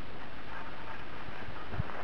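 Steady outdoor background noise with a brief low thump near the end.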